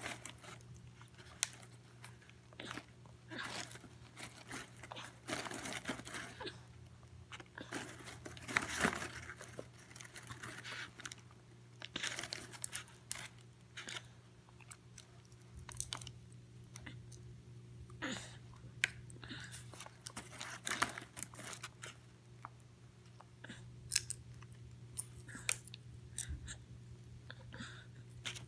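Toddler chewing and crunching popcorn in irregular bites, with her hand rustling the brown paper bag now and then as she reaches in for more.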